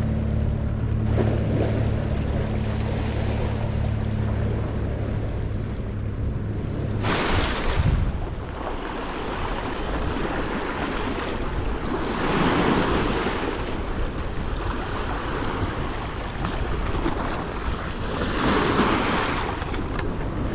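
Fast river water splashing and washing against a rocky shoreline, with wind on the microphone swelling and easing in gusts.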